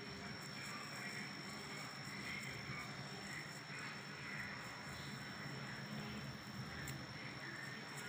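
Faint steady background noise with a constant thin high-pitched whine and no distinct event.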